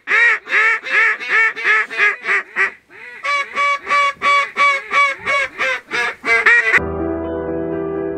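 Duck quacking in two long, rapid runs of loud quacks, about three to four a second, with a short break between them. Near the end the quacking stops suddenly and background music takes over.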